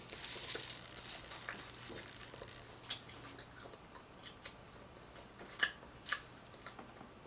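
A person chewing food close to the microphone, with scattered sharp mouth clicks and smacks, the loudest a little past halfway through.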